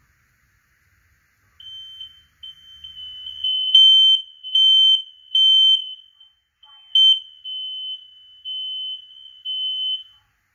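Ceiling-mounted smoke alarm sounding while being tested: a loud, high-pitched beep repeating in pulses of about half a second. It starts about one and a half seconds in, is loudest in the middle and stops just before the end.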